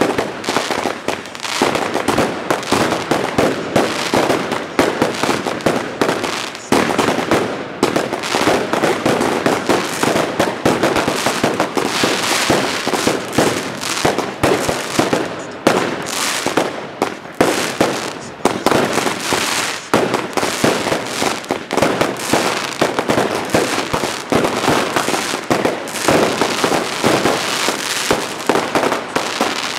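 Fireworks going off without pause: a dense, continuous run of bangs and crackling from rockets and shells bursting overhead.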